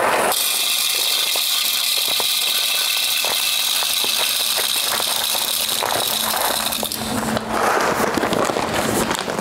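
Whole coffee beans poured from a bag into the hopper of a Macap M42D espresso grinder: a steady, dense rattle of many small clicks as the beans fall and pile up. The rattle tails off about seven seconds in.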